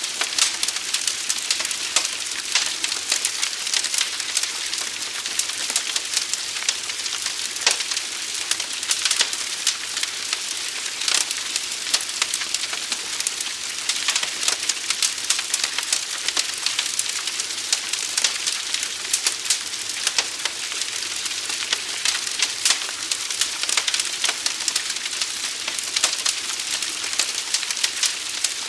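Wood fire burning, with a steady hiss and dense, irregular sharp crackles and pops.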